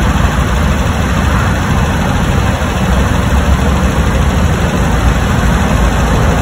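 Motor vehicle engine idling with steady, loud road-traffic rumble, with no distinct events standing out.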